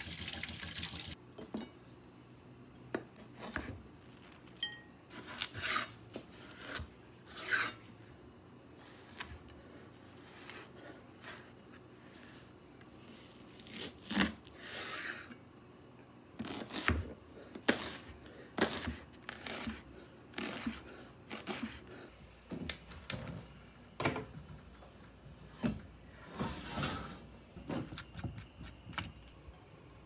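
Kitchen tap running briefly as leeks and carrots are rinsed, then irregular knife strikes and knocks on a cutting board as the vegetables are chopped, with occasional clatter of kitchenware.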